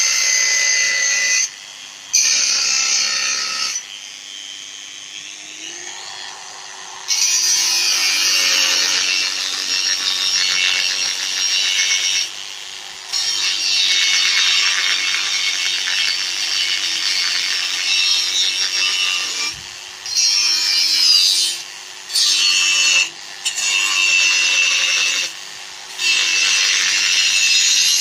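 Handheld angle grinder with a cut-off disc grinding into a steel bar: a harsh, loud cutting noise over the motor's steady whine, coming in stretches of a few seconds as the disc is pressed in and eased off, with the motor note dipping briefly under load.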